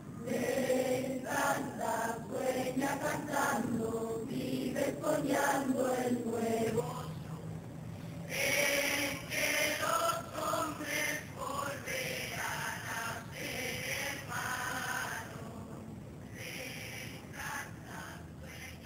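A choir of schoolchildren singing a song together. The singing grows quieter for the last few seconds.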